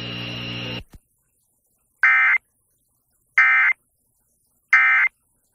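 Emergency Alert System end-of-message data burst: three identical short, shrill digital bursts sent about a second and a half apart, signalling the end of the tornado warning. Just before them a steady hum from the broadcast audio cuts off, with a click.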